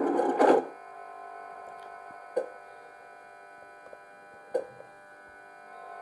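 DCC sound decoder playing a Class 91 and Mk4 DVT sound file through a model's speaker. The noisy sound of the DVT's sliding door ends about half a second in. Then a steady electrical hum of several fixed tones follows, with a sharp click twice, about two seconds apart.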